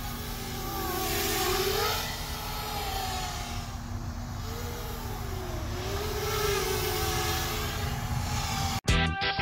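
FPV quadcopter's brushless motors and propellers buzzing in flight, the pitch rising and falling together as the throttle changes. It cuts off abruptly near the end, where music begins.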